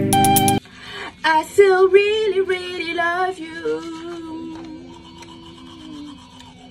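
A woman singing with a toothbrush in her mouth, her voice gliding over a few notes and then holding one long, slightly sinking note, over the scrubbing of the brush. A few notes of electronic music cut off under a second in.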